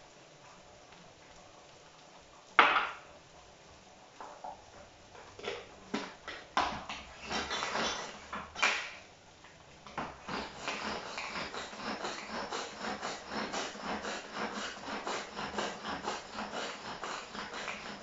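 Kitchen knife and bowls knocking on a wooden cutting board as tomatoes are cut. There is one sharp knock about two and a half seconds in and scattered knocks after it, then a fast, continuous run of cutting strokes through the second half.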